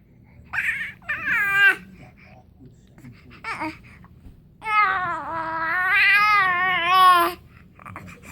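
A four-month-old baby vocalizing in high-pitched sounds: two short squeals, a brief one a little later, then a long drawn-out wavering vocalization of nearly three seconds that rises and falls in pitch.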